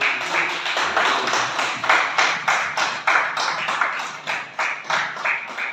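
A group of people clapping by hand. The applause is dense at first and thins out into more separate claps toward the end.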